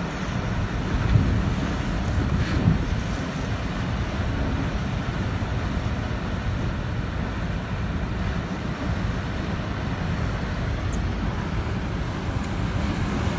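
Hurricane wind and heavy rain: a steady rushing noise with a low buffeting rumble of wind on the microphone. It gusts harder about a second in and again near three seconds.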